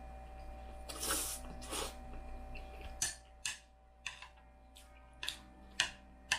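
Slurping a mouthful of black bean noodles, twice in the first two seconds, then from about three seconds in a string of sharp clicks as a fork and chopsticks stir the noodles and tap against the plate, over a faint steady hum.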